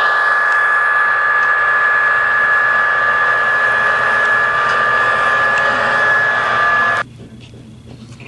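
HO scale model train running, a steady whirring hum with a high motor whine. It cuts off suddenly about seven seconds in, leaving quieter background noise with faint ticking.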